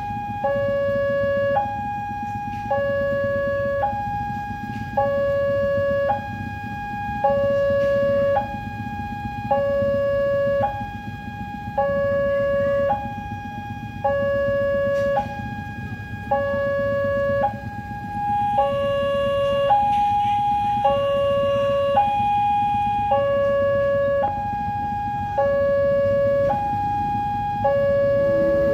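Railway level-crossing warning alarm sounding a two-tone electronic signal, stepping between a lower and a higher pitch about once a second. It means the barrier is closed for an approaching train.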